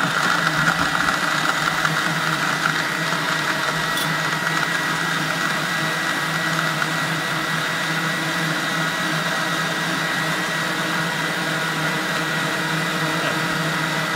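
Countertop blender running at a steady speed, blending a liquid ceviche marinade of lime juice and fish.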